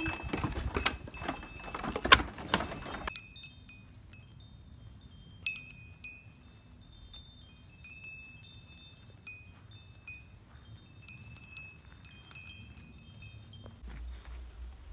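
Sheep hooves clattering on bamboo stairs for about three seconds, loudest about two seconds in. Then chimes ring: clear high metal tones struck one after another, each fading, until near the end.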